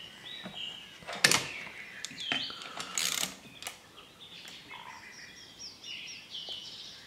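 A few sharp metallic clicks and knocks from a socket ratchet snugging up the shift rod bolt in an outboard's lower leg. Birds chirp faintly in the background.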